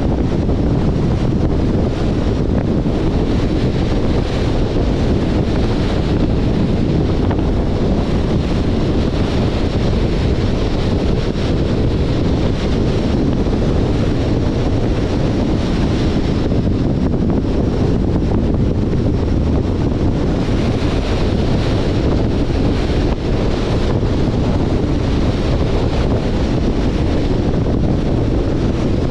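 Steady wind rushing over the microphone of a moving car, a constant low noise with the 2021 Jeep Compass's road noise under it.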